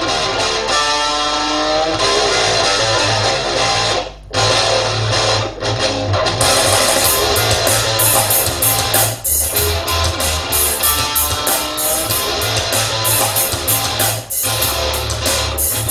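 Instrumental rock music with electric guitar and bass, played loud through a pair of Lithe Audio Bluetooth ceiling speakers with their fire and acoustic hoods off. The music breaks off briefly about four seconds in.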